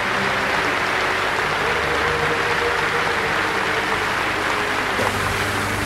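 An audience clapping in steady, sustained applause, with a low steady hum underneath.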